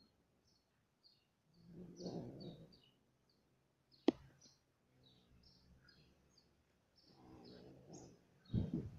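Small birds chirping, many short high chirps in quick succession. A single sharp click about four seconds in, and low rumbling noise around two seconds in and again near the end.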